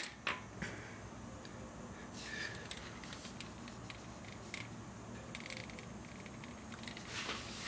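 Scattered light metallic clicks and taps, the sharpest right at the start, as a new clutch slave cylinder is handled and pushed into place on the transmission bell housing.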